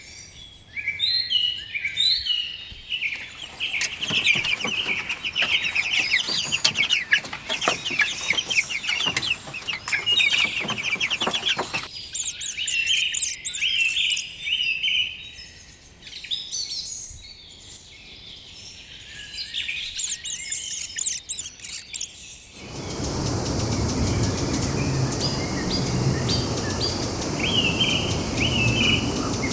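Birds chirping and calling, many quick chirps close together. About halfway through, very high, fast trills join in. Later the sound changes abruptly to a steady background hiss with scattered birdsong.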